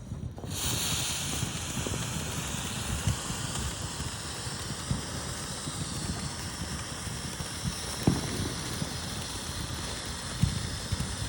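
TNT Fireworks 'Stomp' ground fountain firework spraying sparks with a steady hiss that starts suddenly about half a second in, with a few soft knocks underneath.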